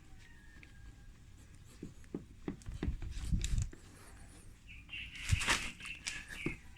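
Handling noises: scattered light knocks and rubbing, with a brief cluster of short, high chirping tones and a sharp tap about five seconds in.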